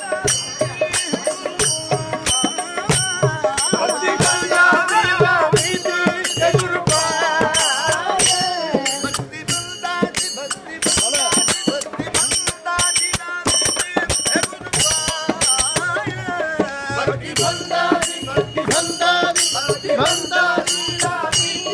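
Small brass hand cymbals (jalra) struck in a steady rhythm, accompanying a group of men singing a devotional bhajan together.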